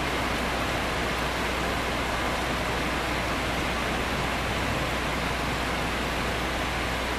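Heavy rain falling steadily during a thunderstorm, an even hiss that does not change.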